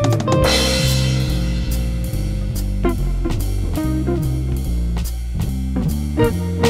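Blues-rock band music with electric guitar, a bass line and a drum kit, no vocals; a cymbal crash rings out about half a second in.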